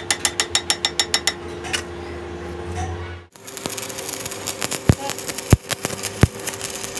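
Hand tool rapidly tapping the weld bead on a steel truck input shaft, about eight taps a second, stopping a little over a second in. After a brief break about three seconds in, electric arc welding on the shaft: a steady crackling hiss with a few sharp pops.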